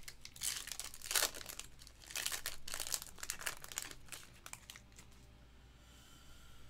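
Foil wrapper of a Panini Clearly Donruss football card pack crinkling as it is opened and the cards are pulled out. Dense bursts of crinkling for the first four and a half seconds, then quieter handling.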